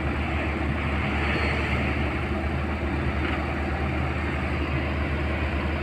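Tata Hitachi excavator's diesel engine running steadily with a deep, even hum as the machine lowers itself off a flatbed trailer.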